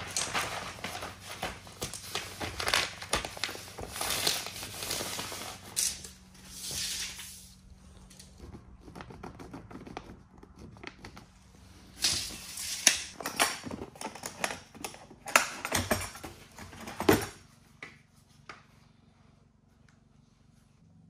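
Plastic vapor barrier sheeting crinkling and rustling as it is handled against a wall, in irregular bursts with sharp clicks, falling quiet near the end.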